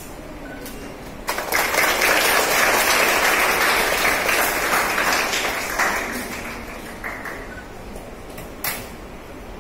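A small group applauding, breaking out about a second in and dying away over the following few seconds. A single sharp click near the end.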